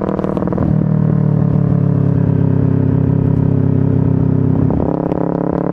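Engine and exhaust of a Honda Supra underbone motorcycle fitted with a Kawasaki Ninja 250 engine, running steadily on the move; it gets louder about a second in and eases back near the end.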